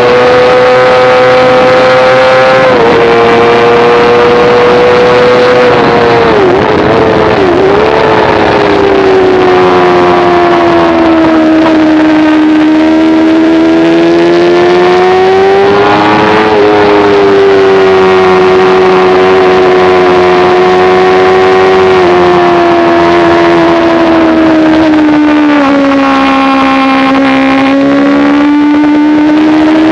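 Sport motorcycle engine at high revs on a racetrack, heard onboard. The pitch holds high with slow rises and falls, and there is a cluster of quick dips about six to eight seconds in, as on downshifts under braking.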